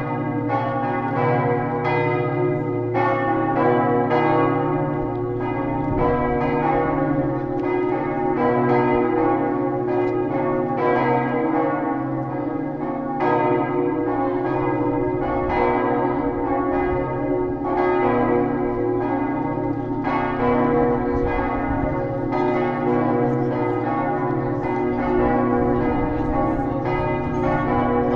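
Several church bells ringing together in a continuous, overlapping peal, with new strikes every fraction of a second over the long hum of the bells: the ringing that calls people to Mass.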